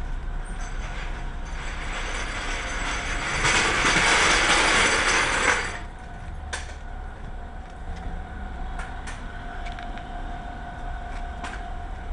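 Workshop noise from a tyre yard: a loud hiss lasting about two seconds that cuts off suddenly, like compressed air being let off. Over a low background rumble, a steady hum and a few sharp knocks follow.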